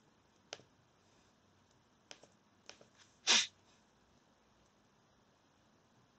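A few faint computer mouse clicks, then, a little over three seconds in, one short, sharp burst of breath from a person, the loudest sound.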